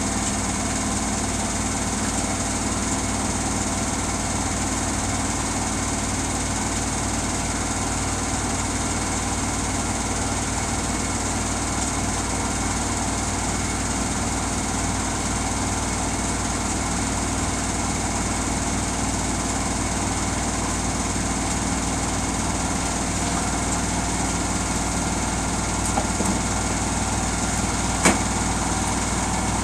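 Samsung washing machine spinning its drum at a steady speed: a constant motor hum with steady whining tones. A short click comes near the end.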